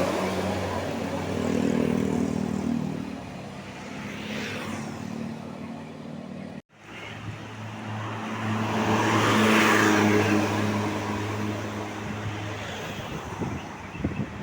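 Tour buses passing, sounding low multi-tone telolet horns that hold steady chords and then shift to new notes, over engine and road noise that swells as each bus goes by. The sound cuts out abruptly for a moment a little past halfway.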